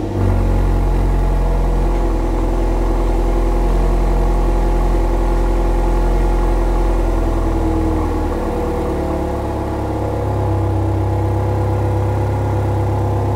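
BMW M135i F40's 2.0-litre turbocharged four-cylinder idling steadily just after start-up, heard from the rear through a freshly fitted Cobra Sport GPF-back exhaust. The note shifts slightly lower about eight seconds in as the start-up idle settles.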